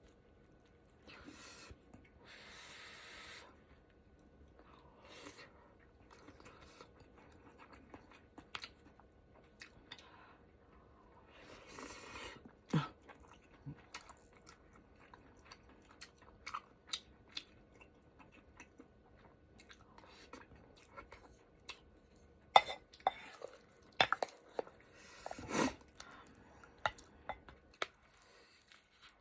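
A person eating a ramen hot pot close to the microphone: chewing with scattered wet mouth clicks and short bursts of noise, a few louder sharp smacks in the second half.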